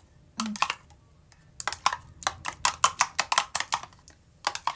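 A metal spoon clicking rapidly against the side of a glass measuring jug while stirring a sauce. The taps come in quick runs: a short one just after the start, a longer one in the middle, and a few more near the end.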